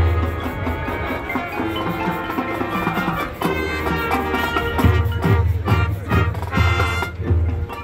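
Marching band playing its field show: sustained wind chords over drums and percussion, with repeated low bass-drum hits.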